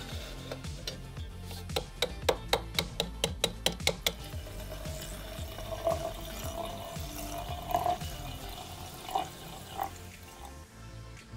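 Background music, with a quick run of about ten sharp clicks, then liquid pouring with a thin tone that rises slowly.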